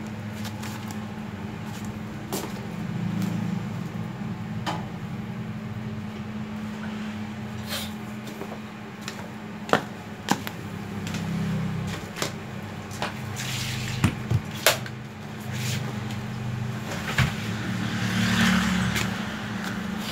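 Corded power drills and their cables being set down and moved about on a floor: scattered clacks and knocks of plastic tool bodies, and a short rustle of cords near the end, over a steady low hum.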